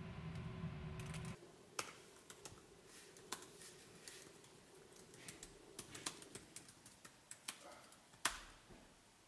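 Computer keyboard keys clicking in an irregular run of keystrokes as a short sentence is typed, with one louder click near the end. Before the typing, a low steady hum cuts off suddenly just over a second in.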